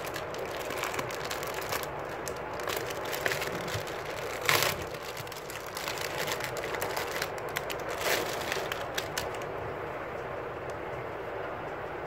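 Clear plastic packaging bag crinkling and crackling in the hands as a plush diary is taken out of it, with the loudest crackles about four and a half seconds in and again near eight seconds. A steady background noise runs underneath.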